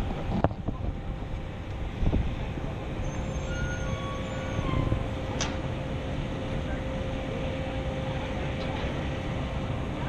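Bronto Skylift S-90 HLA aerial lift running as the boom raises the basket: a steady low rumble with a faint steady hum, and a single sharp click about halfway through.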